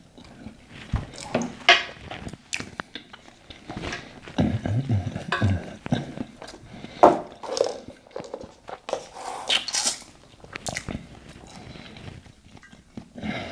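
Close-miked eating sounds: irregular chewing and mouth smacks, with occasional light clinks of cutlery on a plate.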